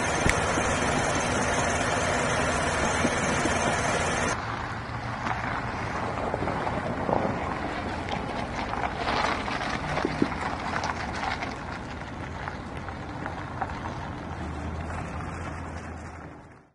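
Outdoor street sound with a vehicle engine running. The sound changes abruptly about four seconds in, becoming quieter with scattered clicks and knocks, and dies away at the very end.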